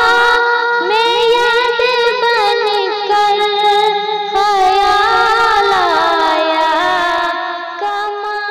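A woman singing a naat, an Urdu devotional song, in long ornamented notes that slide between pitches; the voice tapers off near the end.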